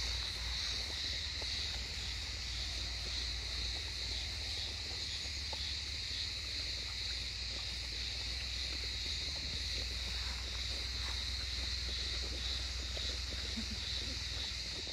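A litter of Doberman puppies eating together from a shared bowl, with many small scattered clicks of chewing and lapping. Under it runs a low wind rumble on the microphone and a steady high-pitched drone.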